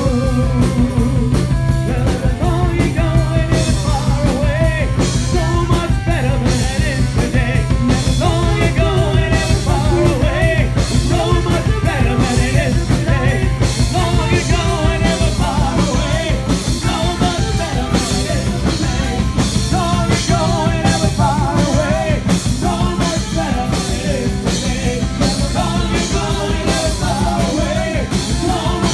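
Live rock band playing, with a woman singing lead into a microphone over a steady drum beat, bass and electric guitar.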